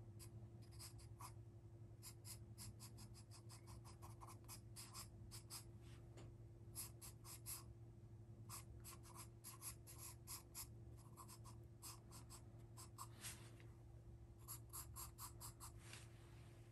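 Graphite pencil sketching on paper: faint, quick short strokes, several a second, in runs with one brief pause late on.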